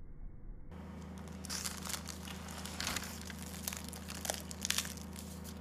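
Crisp, flaky crust of a freshly baked saya çöreği (layered Turkish bun) crackling under a hand that presses it, a run of irregular small crackles, over a low steady hum.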